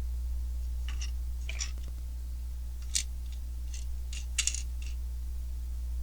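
Small plastic Lego pieces clicking and clattering against each other as they are sorted through by hand: a scattering of short, sharp clicks over a steady low hum.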